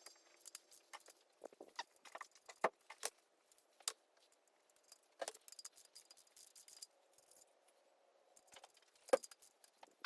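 Faint, irregular metallic clinks and clicks of bolts and hand tools being handled and knocked together.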